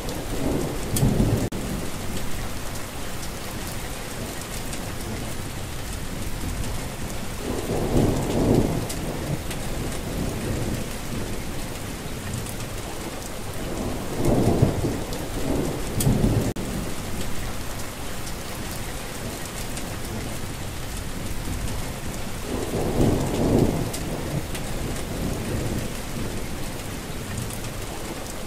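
Steady rain falling, with low rolls of thunder rising and fading several times: just after the start, about eight seconds in, around fourteen to sixteen seconds, and about twenty-three seconds in.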